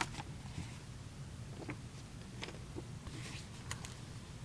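Faint handling of a cardboard trading-card box: a few light ticks and rustles, spaced out, over a low steady room hum.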